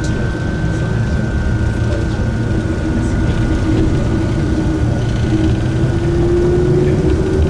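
Enoden electric train running, heard from on board: a steady rumble of wheels on track with a thin steady whine above it, and a motor tone that rises in pitch over the last couple of seconds.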